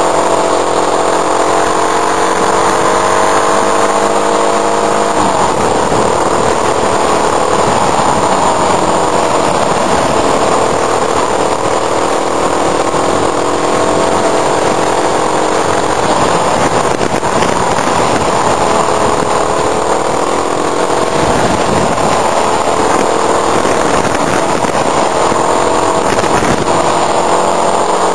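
Motorcycle engine running under way, its note rising and falling with the throttle, heard from a camera mounted on the bike. From about five seconds in until near the end, a loud wind rush over the microphone largely covers the engine, which comes through clearly again in the last second or so.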